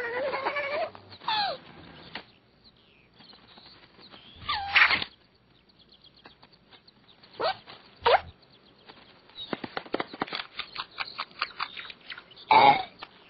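Cartoon sound track of wordless character vocal sounds: short squeals and whines that glide in pitch, several separate calls, with a quick run of light tapping sound effects in the second half.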